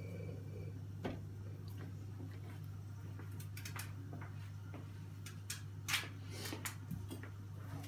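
Quiet room tone with a steady low hum and scattered light clicks and taps, a few of them a little louder about a second in and near six seconds.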